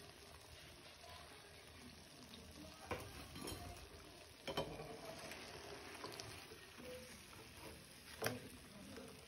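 Faint sizzle of somas deep-frying in hot oil, with a few light clicks of a slotted spoon against the pan as the fried pastries are lifted out.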